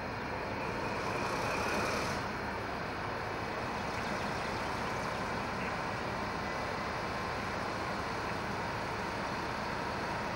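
DB class 218 diesel-hydraulic locomotive's diesel engine running steadily at the head of a passenger train, with a brief higher hiss during the first two seconds.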